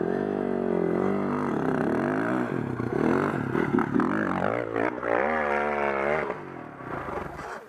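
Enduro dirt bike engine revving on and off the throttle, its pitch rising and falling through the gears. It climbs sharply about five seconds in, then drops away and fades just before the end.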